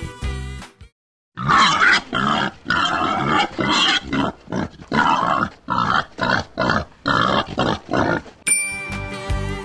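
Wild boar grunting in a run of short calls, about two a second, for several seconds. A short bit of music ends just before the calls, and a bright bell ding sounds near the end.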